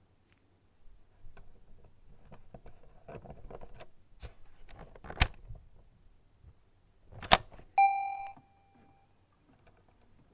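Sony 8mm Handycam camcorder: soft mechanical clicks and rattles, a sharp click about five seconds in and a louder one about seven seconds in, then a single short electronic beep.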